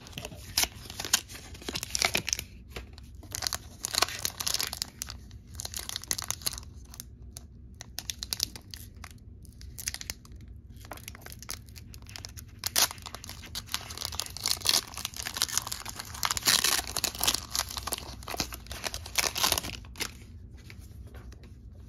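A foil Pokémon booster pack wrapper being torn open and crinkled by hand, in irregular crackling rustles.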